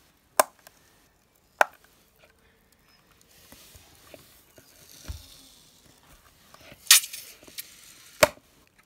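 A balloon filled with shaving cream being pricked with a pin: a couple of sharp clicks, a faint hiss as the foam squeezes out through the holes, then a loud pop about seven seconds in as the balloon bursts, followed by one more sharp click.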